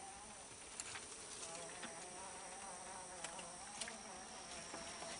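A flying insect buzzing close by, its hum wavering up and down in pitch, over a faint steady high whine, with a few soft ticks.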